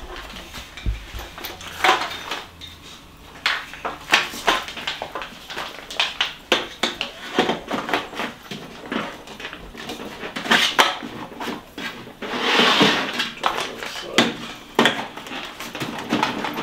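Hard plastic parts of a 4moms baby seat knocking and clicking as the seat frame is handled and fitted onto its base, with a longer rustle about twelve seconds in.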